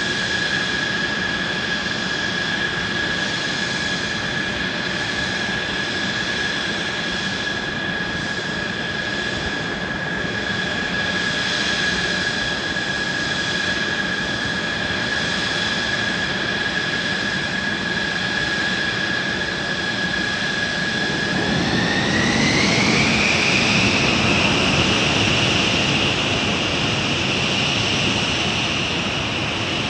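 Mitsubishi F-2 fighter's F110 turbofan jet engine running on the ground with a steady high whine over a rushing hiss. About 22 seconds in, the whine rises in pitch and the engine gets louder as it spools up, then holds at the higher note.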